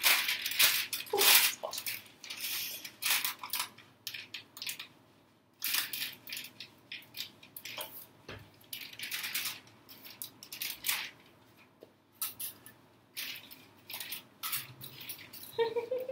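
Plastic bag crinkling and rustling as it is handled, in irregular short bursts with brief pauses.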